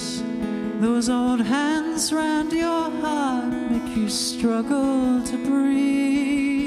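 A male voice singing a slow melody over strummed acoustic guitar chords, ending on a long held note with vibrato.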